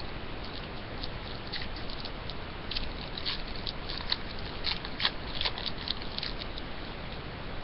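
Trading cards and their wrappers being handled: scattered light crinkles, slides and clicks, busiest in the middle, over a steady faint hiss.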